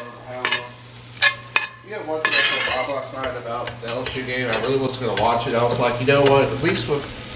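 Metal spoon stirring and scraping diced onions and bell peppers in a pot, the vegetables starting to sizzle, with clinks of the spoon against the pot.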